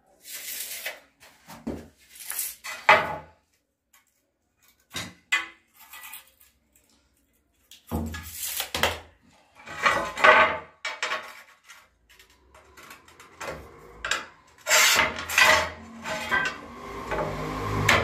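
Ceramic tiles and tiling tools being handled: irregular scrapes and clinks, sparse at first with quiet gaps, then busier near the end.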